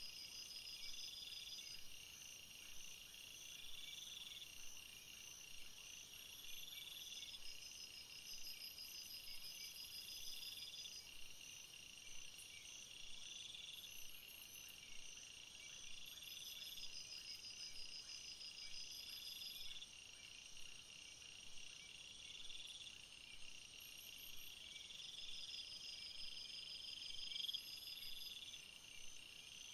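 Faint chirping of insects: several overlapping high trills, one repeating about every three seconds and others in longer pulsing trains every several seconds.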